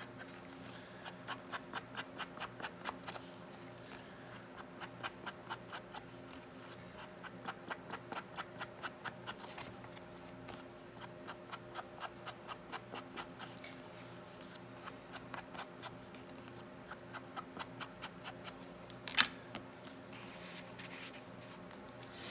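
Blue ink pad dabbed quickly along paper page edges: runs of light, even taps at about five a second, coming in several spells, with one sharp louder click a few seconds before the end.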